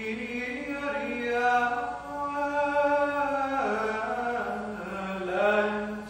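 A man singing Gregorian chant alone, with no instruments: one slow phrase of long held notes that stops near the end.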